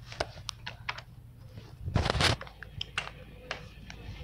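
Handling noise on a phone's microphone as it is moved about: a string of light clicks and knocks, with a louder rustling scrape about two seconds in.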